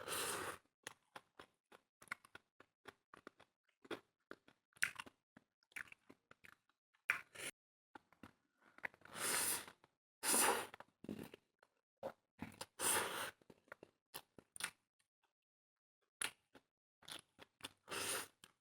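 Close-up chewing and crunching of food, with irregular wet mouth clicks and smacks and several louder crunchy bursts, mostly around the middle and near the end.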